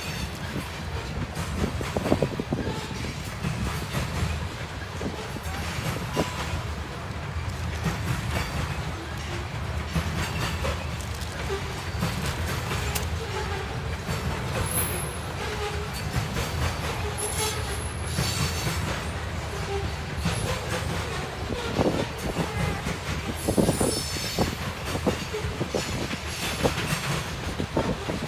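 Freight train of grain cars rolling past with a steady low rumble, wheels clicking over rail joints. A few brief high-pitched wheel squeals come in about halfway through and again near the end.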